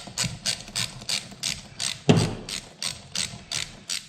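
Ratchet wrench clicking in quick back-and-forth strokes, about three clicks a second, while a part of a YZ85 engine is worked loose. There is one louder clunk about two seconds in.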